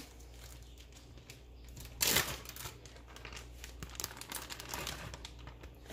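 Plastic freezer bag crinkling and rustling as it is handled and opened to take out shredded chicken, with one louder crackle of the bag about two seconds in.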